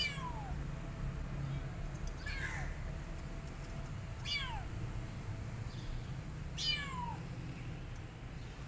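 A kitten meowing repeatedly: four high meows, each falling in pitch, about two seconds apart.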